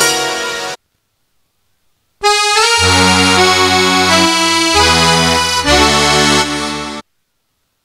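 Roland XPS-10 keyboard presets being demonstrated: one tone's phrase stops under a second in, and after about a second and a half of silence a new tone plays a short phrase of held chords over bass notes with a melody line, cutting off abruptly near the end.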